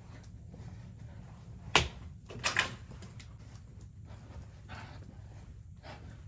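A sharp knock, then a short dog bark about half a second later, over a steady low hum.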